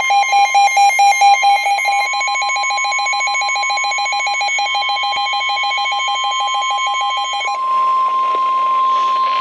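NOAA Weather Radio Emergency Alert System tones. Rapid warbling digital data tones, the SAME header, sound over a steady high 1050 Hz warning alarm tone. The data warble stops about seven and a half seconds in while the alarm tone keeps sounding, marking a weather warning about to be read.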